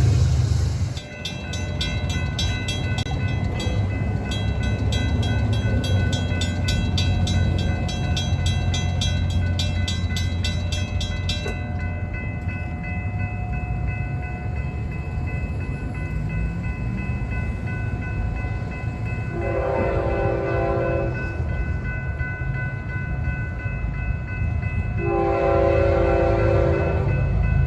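Florida East Coast Railway diesel freight train running by with a steady low rumble. A rapid, evenly repeating metallic ringing stops about 11 seconds in. The locomotive's air horn sounds two blasts, about 20 and 25 seconds in, each lasting roughly a second and a half.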